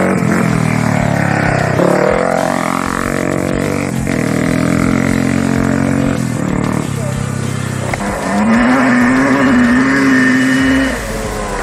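Off-road race vehicle engines running at the roadside, one passing by about two seconds in with its pitch sweeping. Later an engine note holds steady at high revs for a few seconds before dropping off.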